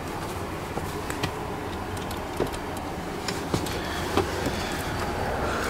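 Fingers tapping and rubbing on the hard plastic at the bottom of a car door panel: a few light, scattered clicks over a steady low background hum.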